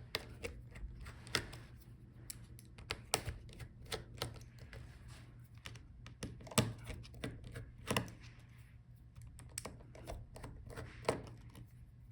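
Irregular small clicks and taps of a screwdriver and tiny screws being worked out of a laptop's hinges, with a few louder taps, over a low steady hum.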